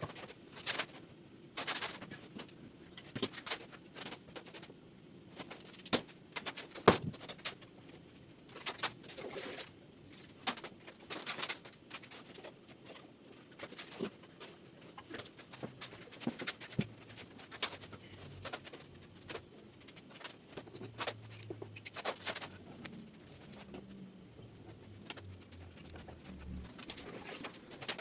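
Scattered sharp knocks and clicks at an irregular pace, with faint low cooing calls in the background, most noticeable in the second half.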